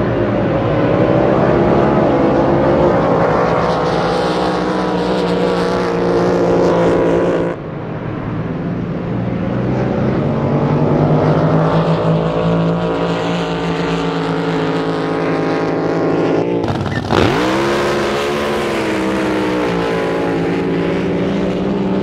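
Racing drag boat engines running hard on high-speed passes: a loud, rough pitched engine note that drifts up and down in pitch. The sound changes abruptly twice to another boat's run, and just after the second change an engine revs up steeply from low.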